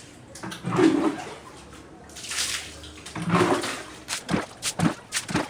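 Floodwater being bailed out by hand and thrown across a tiled floor: two big splashing pours, then quick short splashes about two or three a second near the end.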